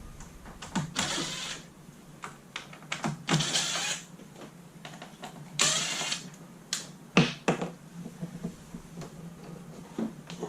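An RV wall control panel being worked loose by hand: three or four short scraping rubs, then a few sharp clicks and knocks about two-thirds of the way through.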